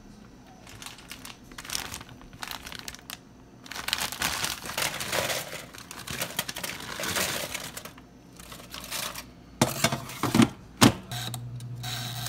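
Crinkling of a plastic bag of frozen french fries as they are tipped into a foil-lined air fryer basket, then a few sharp knocks, then a low steady hum as the Chefman air fryer is switched on with its dial.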